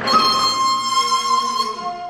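A daegeum concerto played with a Korean traditional orchestra: a high note enters strongly and is held, then the melody steps down to a lower held note near the end.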